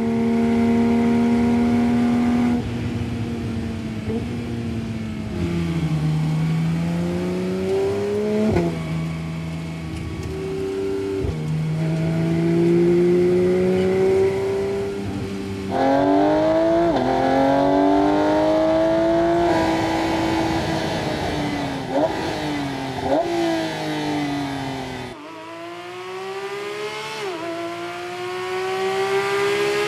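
A 2023 Porsche 911 GT3 RS's naturally aspirated 4.0-litre flat-six driven hard on a track: the engine note climbs through the revs, drops sharply at quick upshifts, and falls on lift-offs and downshifts. The sound jumps abruptly twice where separate runs are spliced together.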